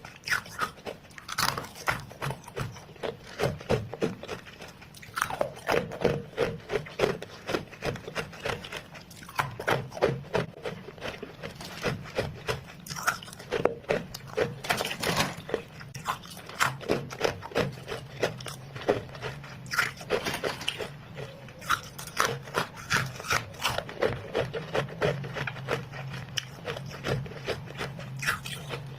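Freezer frost being bitten and chewed in the mouth: a continuous run of crisp crunches. A low steady hum sits under it in the second half.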